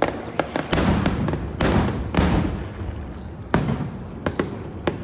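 Fireworks going off: a run of sharp bangs and pops, with three long crackling bursts in the first half and a single loud bang about three and a half seconds in.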